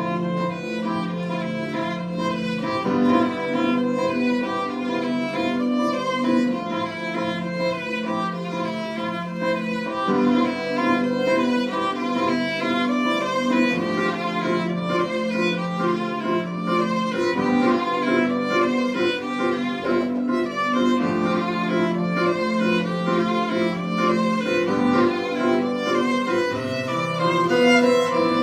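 Instrumental music from a violin and a second instrument: the violin plays a melody over a steadily repeating pattern of lower notes.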